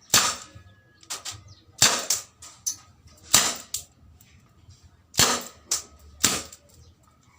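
WG 701 airsoft revolver firing plastic BBs single action: five sharp cracks about a second and a half apart, with smaller clicks and knocks between the shots.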